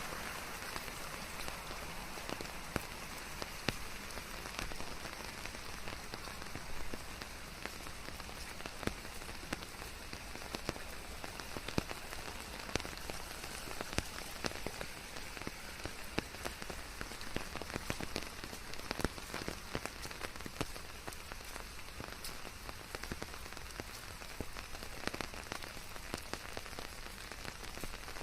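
Steady rainfall mixed with white noise: an even hiss, with many separate raindrops striking as sharp little taps throughout.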